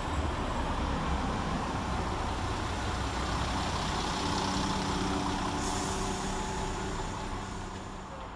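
West Midlands Railway Class 172 Turbostar diesel multiple unit pulling away from the platform, its diesel engines humming steadily under power. The sound fades as the train draws off near the end.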